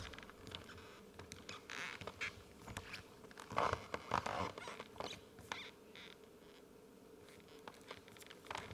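Quiet rustling and small clicks of paper answer cards being handled and held up by an audience, with louder bursts of rustling about two seconds in and again around four seconds in.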